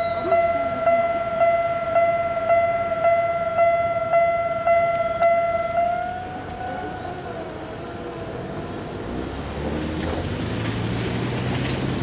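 Japanese level-crossing warning bell ringing, an electronic chime struck about twice a second, that stops about six seconds in as the crossing clears. A low rumble builds near the end.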